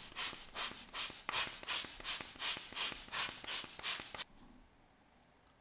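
Hand air blower squeezed in quick puffs, about five a second, blowing dust off the watch; it stops suddenly about four seconds in.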